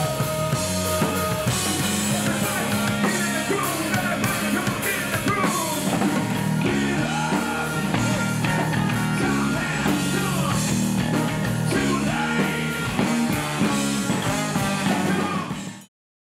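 Live rock band playing: drum kit, electric bass and electric guitar, with a singing voice. The music cuts off suddenly near the end.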